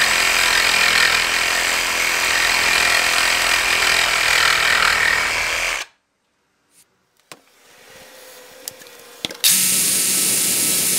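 DeWalt DCS382 cordless reciprocating saw cutting down the head of a bolt flush with a wooden surface. It runs steadily for about six seconds and stops abruptly. After a few quiet seconds with small clicks, it starts cutting again near the end.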